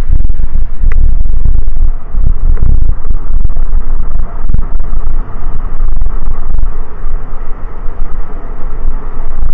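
Loud wind rumble on the microphone of a mountain-bike-mounted camera riding a rough dirt road, with rattles and knocks from the bike and mount jolting over the surface.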